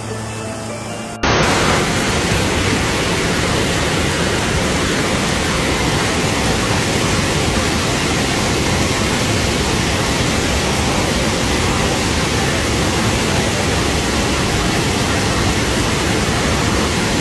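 Brown floodwater torrent rushing down a hillside and over concrete steps: a loud, steady, unbroken rushing noise that cuts in abruptly about a second in.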